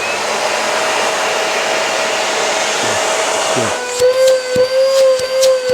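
Daewoo canister vacuum cleaner with a newly fitted 1200 W replacement motor switched on and running: a loud rush of air with a steady whine. About four seconds in the whine drops lower and the sound starts pulsing about twice a second.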